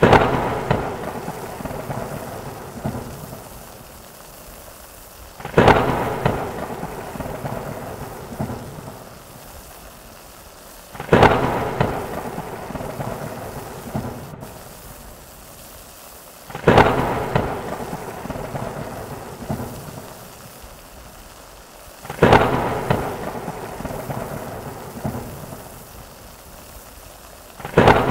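Rain and thunder sound effect: steady rain with a thunderclap breaking about every five and a half seconds, each rolling away over a few seconds, repeating at even spacing like a loop.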